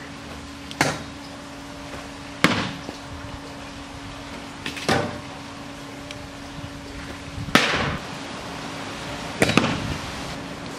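Small thrown balls striking the wooden fence and ground: about five sharp knocks a couple of seconds apart, the last two close together, over a steady low hum.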